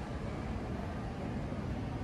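Steady outdoor street ambience: an even low rumble with a constant hiss over it, no distinct events.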